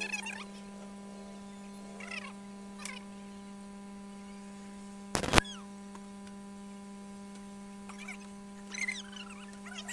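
Steady electrical mains hum, with a few short, high squeaky chirps and one sharp knock about five seconds in.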